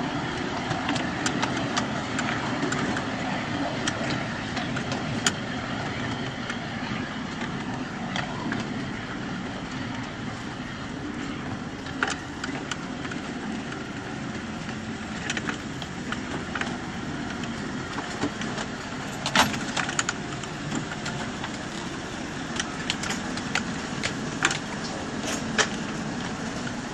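7¼-inch gauge miniature train running along its track: a steady rumble of wheels on rail, broken by scattered sharp clicks and clacks, with a cluster of louder ones about two-thirds of the way through.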